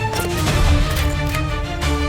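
Music: a melody of held notes over heavy bass and a steady beat.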